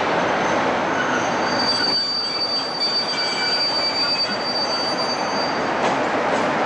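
Class 47 diesel locomotive with its Sulzer twelve-cylinder engine running as it moves slowly along the platform, with a high, steady wheel squeal from about two seconds in until near the end.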